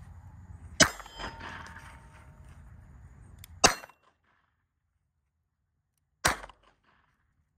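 Three sharp pistol shots from a Colt 1908 Vest Pocket firing .25 ACP, spaced roughly two and a half to three seconds apart. A faint ringing lingers for a couple of seconds after the first shot.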